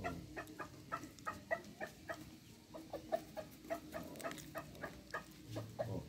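Chickens clucking in a string of short, sharp clucks, a few each second.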